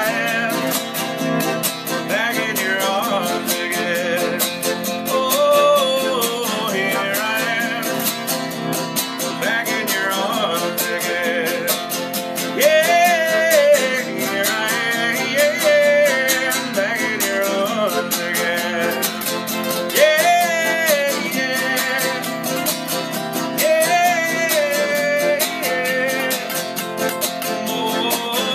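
A man singing to two acoustic guitars played together in a live, unamplified-sounding performance.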